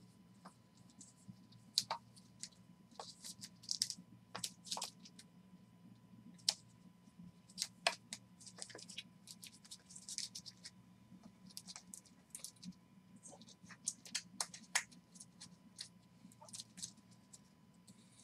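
Trading cards in plastic sleeves and rigid toploaders being handled and sorted by hand: irregular light clicks and taps of plastic on plastic with scratchy rustles. A steady low hum runs underneath.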